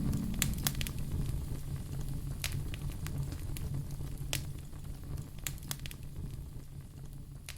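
Wood logs burning in a fireplace: a steady low rumble of the fire with scattered sharp crackles and pops at irregular intervals.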